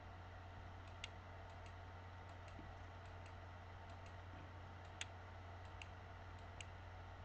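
Faint computer mouse-button clicks, about fifteen irregularly spaced single clicks, each setting a point of a polygonal lasso selection, over a low steady hum.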